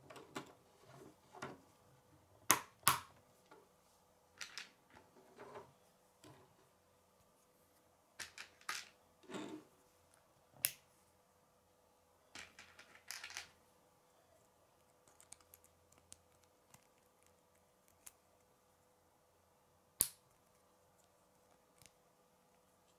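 K'nex plastic rods and connectors being handled and snapped together: irregular sharp clicks and snaps in small clusters with pauses between, the loudest pair about two and a half seconds in.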